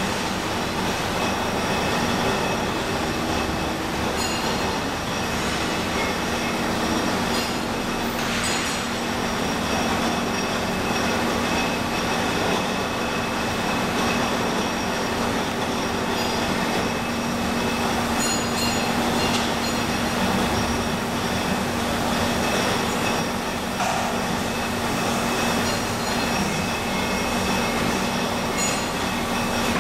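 Steady mechanical noise: a constant low hum with a few high whining tones over it and a few short clicks.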